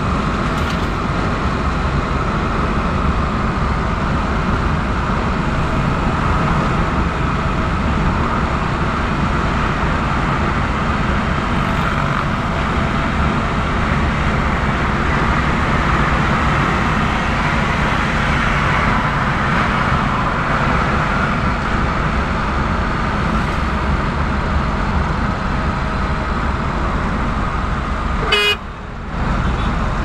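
Steady engine and road noise from inside a moving vehicle's cab at highway speed, with a brief break near the end.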